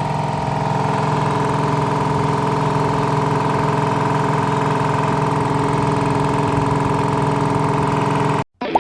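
Piston air compressor running steadily, a pitched drone with a strong hum, as it struggles to build pressure because air leaks out at its cylinder head gasket. The sound cuts off abruptly near the end, and guitar music starts.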